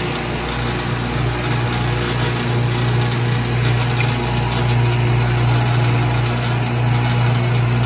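Saw side grinder for carbide-tipped circular saw blades running steadily, a strong low motor hum over an even whir, with coolant pouring over the blade.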